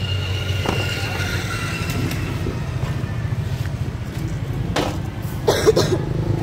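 Street traffic with a motor scooter's engine running close by, a steady low rumble; a few short knocks and rustles about five seconds in.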